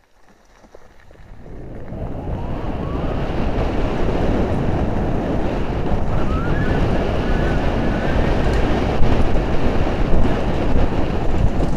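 Wind rushing over a helmet-mounted camera's microphone, mixed with the rumble of mountain-bike tyres on a dirt trail. It builds over the first two seconds as the bike picks up speed downhill, then stays loud and steady.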